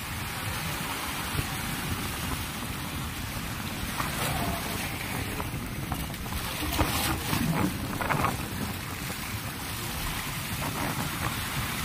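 Sea surf washing over shore rocks, with wind buffeting the microphone. A few faint clicks and rustles come in the middle.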